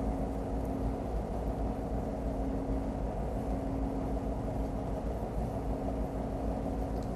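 Tractor tug's diesel engines running steadily: a low rumble with a steady hum over it, and water churning against the hull.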